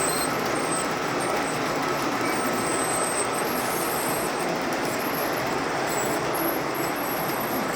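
Train running on rails with a steady rolling rumble and faint high squeaks from the wheels.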